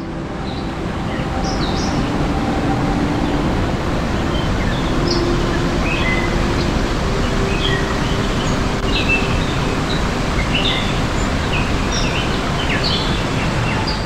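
Rushing water of a small cascade pouring into a rocky stream, a steady even rush, with small birds chirping in short scattered calls over it.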